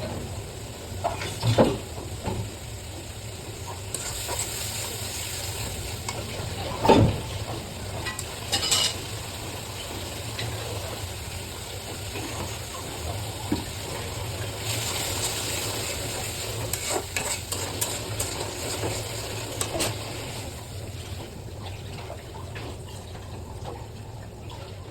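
Food sizzling in a cooking pan while being stirred, with a few sharp knocks of a utensil against the pan, the loudest about a second and a half in and again about seven seconds in. The sizzle swells twice, once about four seconds in and again in the second half.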